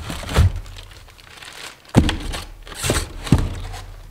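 Plastic bags crinkling as bagged parts are handled and pulled from a cardboard box, with a few sharp knocks, the sharpest about two seconds in.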